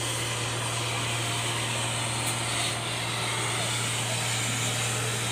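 Steady low hum of machinery running without a break, with an even hiss over it.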